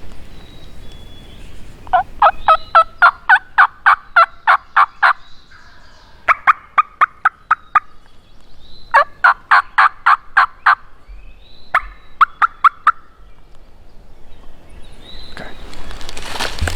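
Turkey calling: four runs of quick, evenly spaced notes, the first about three seconds long with its notes climbing slightly in pitch, the others shorter. A rustling noise rises near the end.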